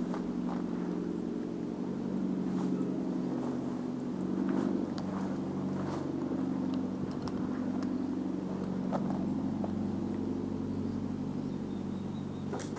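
An engine running steadily: a low droning hum, with a few scattered sharp clicks over it.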